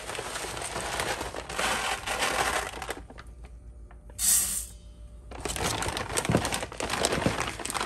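Dry jasmine rice rattling as it is scooped from its plastic bag with a measuring cup, the bag crinkling, with a brief rush of grains poured into a stainless steel Instant Pot insert about four seconds in.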